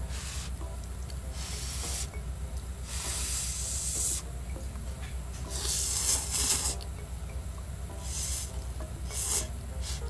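Instant ramen noodles being slurped from a cup with chopsticks: about six short, airy slurps, each a second or less, with the longest and loudest about six seconds in. A steady low hum runs underneath.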